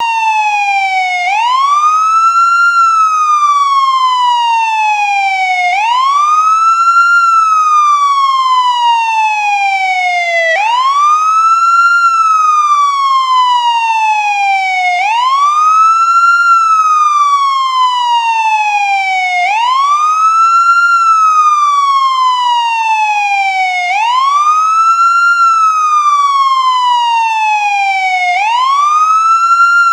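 American ambulance wail siren: a pitch that climbs quickly, then falls slowly, cycling about every four and a half seconds.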